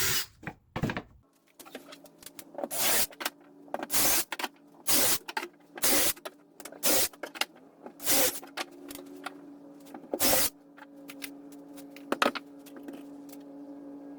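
A power drill running in a series of short bursts, about one a second, as it pre-drills screw holes in the wooden cleats, with a steady low hum underneath from about a second and a half in.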